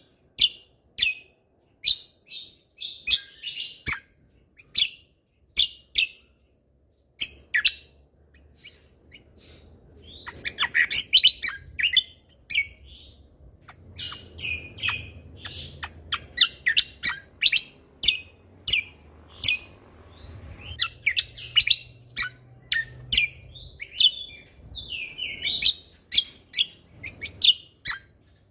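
Cucak kombo (kecial kombok) songbird singing continuously in rapid series of short, sharp chirps and quick trills, with a brief lull about a third of the way in. A faint low hum lies under the song for most of the time.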